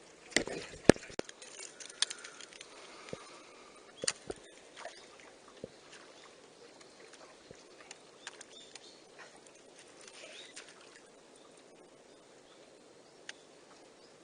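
Fishing reel and tackle handled for a cast from a small boat: a few sharp clicks and knocks in the first couple of seconds, the loudest about a second in, then scattered faint ticks.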